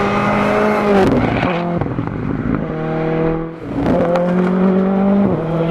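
Ford Fiesta R5 rally car's turbocharged 1.6-litre four-cylinder engine at high revs as the car passes at speed. The revs drop sharply about a second in, the engine is quieter for a moment, then it climbs again and drops sharply once more near the end.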